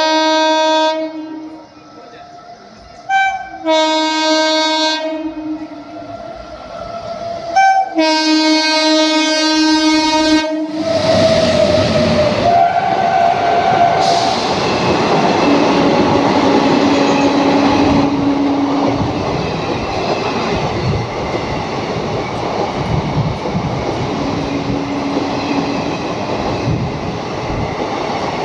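Locomotive horn sounding a series of blasts, short and long, the last about three seconds. Then the train runs close past, wheels clattering over the rail joints in a steady loud rush, with a trace of horn still in it as it arrives.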